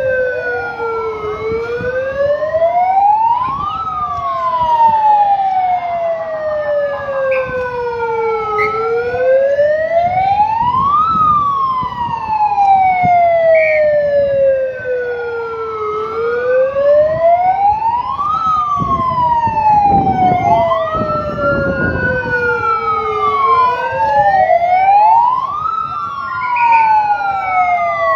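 Two wailing sirens rise and fall in pitch out of step with each other. Each sweep climbs for about two to three seconds and falls away for about four, repeating throughout. They are sounding the alarm for an earthquake evacuation drill.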